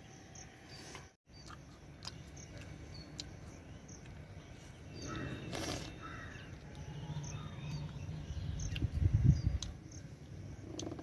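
Crows cawing now and then over quiet outdoor ambience, with a brief low rumble about nine seconds in.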